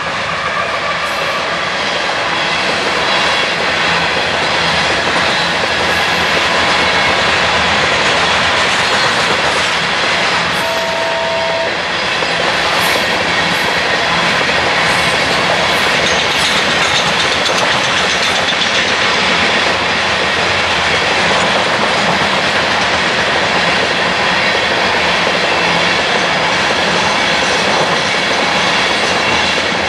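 A CSX coal train's hopper cars rolling past at a steady pace: a continuous rumble and clatter of wheels on the rails, with faint high wheel squeal. A brief steady two-note tone sounds about eleven seconds in.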